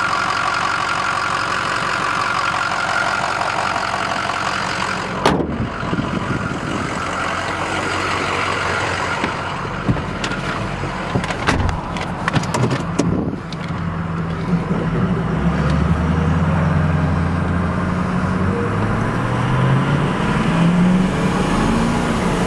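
A 2006 Ford F350's 6.0-litre Power Stroke V8 diesel idling under the open hood, then, after a cut, heard from the cab as the truck is driven: a few clicks and thumps around the middle, then the engine pitch rising in steps as the truck accelerates through its gears.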